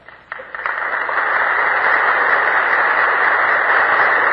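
Audience of members of Congress applauding, heard on a muffled 1943 recording. The applause starts about a third of a second in, builds within the first second and then holds steady.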